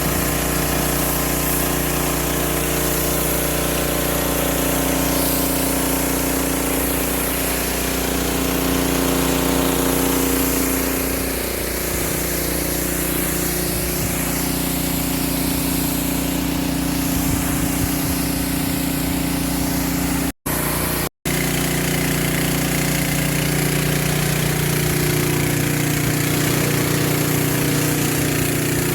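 Husqvarna PW3200 pressure washer's Briggs & Stratton gas engine running steadily under load, its note shifting briefly about twelve seconds in. The sound drops out twice for an instant about two-thirds of the way through.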